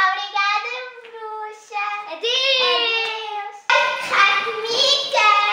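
A child singing a tune in long held notes. A short break comes about three and a half seconds in, and then the singing starts again, louder.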